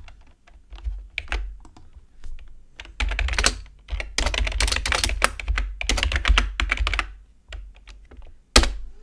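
Typing on a computer keyboard: scattered keystrokes at first, a fast run of keys in the middle, then one sharp key press near the end as a shell command is entered.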